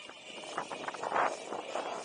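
Wind buffeting the microphone of a camera riding along on an electric unicycle, in uneven gusts, the strongest about a second in.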